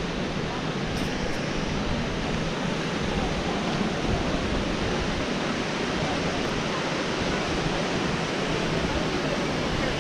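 Waterfall pouring into a rock-walled pool, a steady even noise of falling water.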